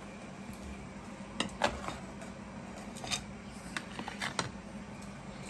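Dishes clinking and tapping on a glass tabletop: several short, sharp clinks, two close together about a second and a half in and a quick cluster near four seconds in, over a steady low hum.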